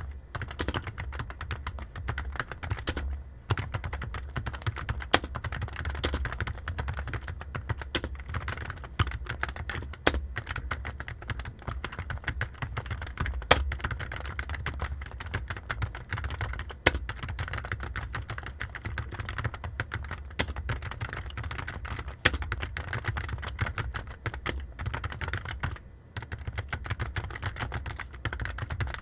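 Typing on a computer keyboard: a fast, uneven run of keystrokes with a few louder key hits and two brief pauses, over a low steady hum.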